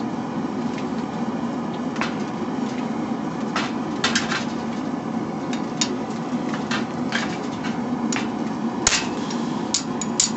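Irregular hand-hammer blows, from a 4-pound hammer, on hot steel being forged, a dozen or so sharp strikes with the loudest near the end, over a steady rush from the running forge. The steel, an old rasp file, is hard and barely flattening under the blows.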